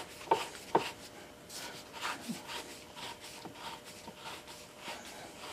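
Metal parts of a hydraulic floor jack's ram assembly being handled and tightened with hand tools: two sharp metallic clicks about a third and three quarters of a second in, then faint scraping and rubbing.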